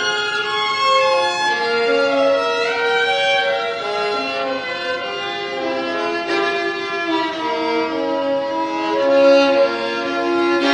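Violin playing a melody of held notes, with two or more notes sounding together in the second half.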